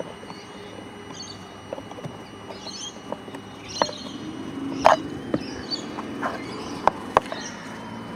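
Scattered clicks and knocks of hand work on a car door while the repaired door handle is put back together, the loudest knock about five seconds in. Faint high chirps sound in the background.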